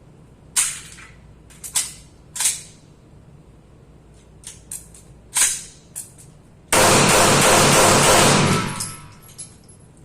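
Gunshots on a shooting range: four sharp, loud shots at uneven spacing over the first six seconds, with a few fainter pops between them, followed by a loud steady rushing noise lasting about two seconds.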